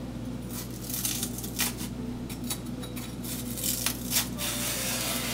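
Kitchen knife peeling the skin from a taro stem: irregular short scraping and stripping strokes, over a steady low hum.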